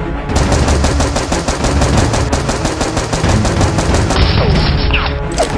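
Rapid automatic gunfire, a machine-gun sound effect of fast evenly spaced shots, over background music.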